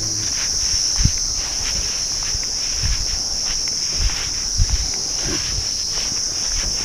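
A steady, high-pitched insect chorus keeps up without a break, with a few soft low thumps under it.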